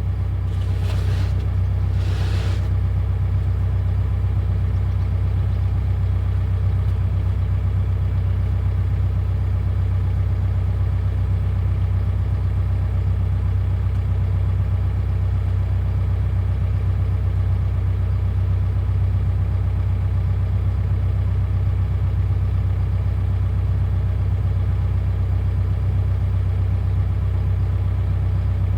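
Excavator's diesel engine running at a steady speed, a constant low hum with a faint regular pulse. Two short rattles or clanks in the first few seconds.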